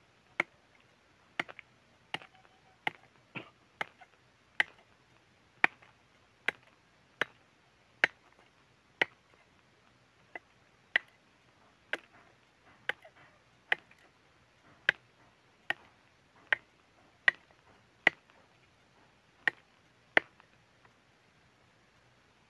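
Mandau (Dayak machete) with a tempilan blade chopping into a piece of wood in a test of the blade: sharp single chops, about one a second, some two dozen in all.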